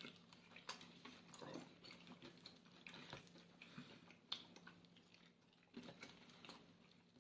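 Quiet eating: faint chewing and a few small clicks, over a faint steady hum.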